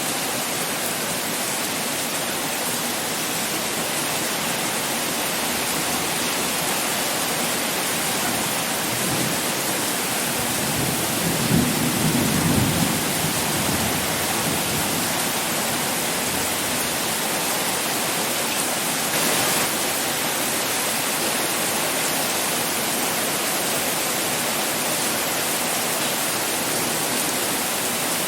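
Pouring rain falling steadily as an even hiss, with a low roll of thunder swelling up a little before the middle and dying away over a few seconds.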